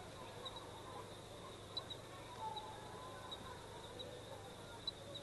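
Faint outdoor ambience: short, high chirps at one pitch, repeating irregularly about once or twice a second, over a steady hiss.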